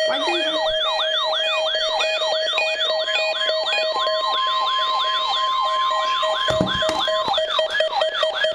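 Weather radio receiver's electronic alert siren, a pitch sweeping down and back up a little over twice a second, set off by a test of the NOAA Weather Radio warning alarm. A steady tone near 1 kHz, the broadcast's warning alarm tone, sounds under it for about three seconds from about four seconds in.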